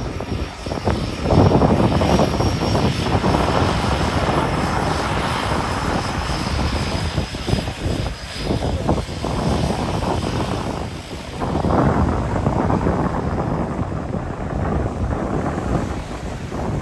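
Large airplane's engines heard close by as a heavy, uneven rushing noise that swells and ebbs, with a faint high whine slowly falling in pitch.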